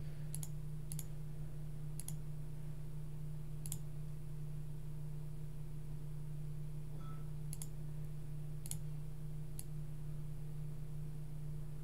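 Scattered single clicks of a computer mouse, about seven in all, over a steady low electrical hum.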